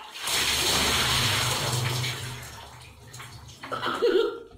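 A bucket of water poured over a person's head and splashing onto a tiled floor, heavy for about two seconds and then trailing off.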